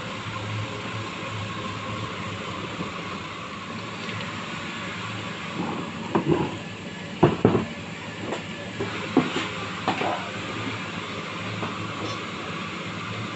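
A steady mechanical hum and hiss, with a cluster of sharp knocks and clatters about halfway through.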